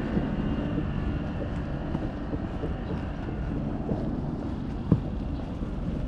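Steady low rumble of wind on the camera microphone mixed with road traffic, heard while walking along a street. There is one sharp click about five seconds in.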